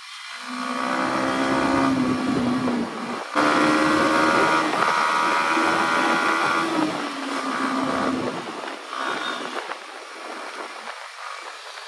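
Motorcycle engine running on the move, its note holding fairly steady over a rushing background noise. It gets suddenly louder about three and a half seconds in and eases off in the last few seconds.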